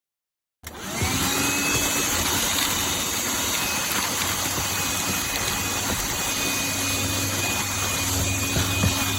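Black+Decker Dustbuster cordless handheld vacuum switching on about half a second in, its motor whine rising briefly as it spins up, then running steadily.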